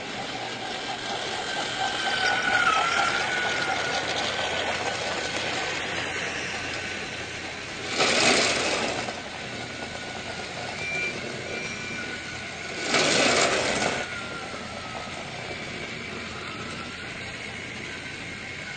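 Battery-powered toy train motor running steadily with a faint wavering whine. Two loud hissing bursts, each about a second long and about five seconds apart, stand out above it.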